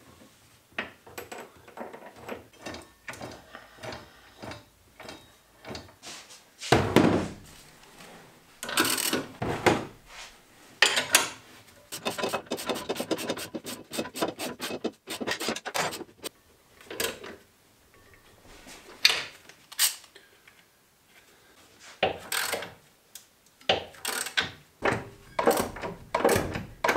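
Irregular metal clinks, knocks and scrapes of hand work on a vehicle drivetrain, with a steel roller drive chain rattling as it is handled and fitted. A quick run of clicks comes in the middle.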